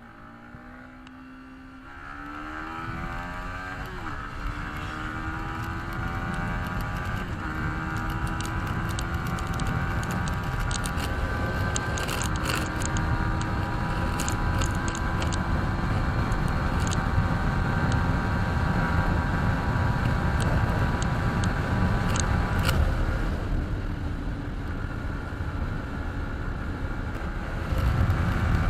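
Yamaha MT-15 BS6 motorcycle's 155 cc single-cylinder engine accelerating hard through the gears: the pitch climbs, drops at each upshift and climbs again several times, then holds at high revs. It eases off briefly about three-quarters of the way through before opening up again.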